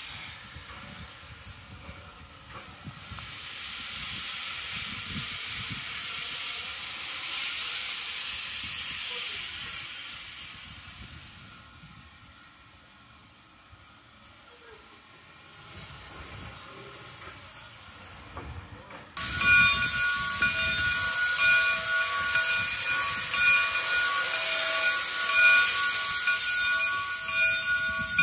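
Steam hissing from a 2-8-0 steam locomotive, swelling and fading. About two-thirds of the way through it jumps suddenly louder, and several steady high-pitched tones sound on and off over the hiss.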